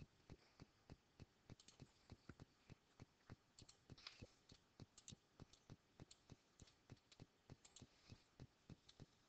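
Near silence: faint room tone with a steady faint ticking about three times a second and a few scattered clicks.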